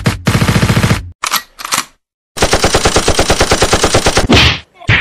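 Machine-gun fire sound effect: two long bursts of rapid, evenly spaced shots at about a dozen rounds a second, separated by a short pause, with a short louder burst near the end.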